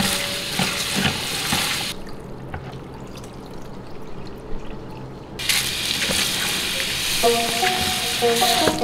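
Tap water running into a plastic colander as black fungus is rinsed by hand. The water stops about two seconds in and starts again about five seconds in as soaked mushrooms are rinsed.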